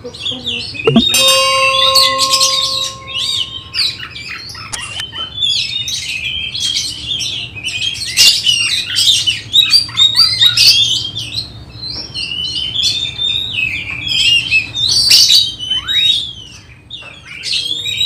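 Caged oriental magpie-robins (kacer) singing a continuous, varied song of rapid chirps and whistles. A brief steady electronic chime sounds about a second in.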